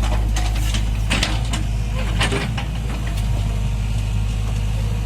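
Heavy diesel engine of construction equipment running steadily, with a string of sharp knocks and clatters over the first half that thin out later.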